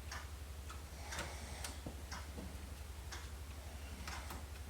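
Scattered light clicks and taps of a floppy drive and its screws being handled and fitted into a PC case's drive bay, over a steady low hum.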